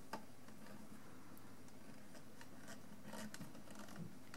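Faint handling sounds of a budget digital microscope being adjusted by hand on its stand: a sharp click just after the start, a few light scrapes around three seconds in, and a small knock near the end.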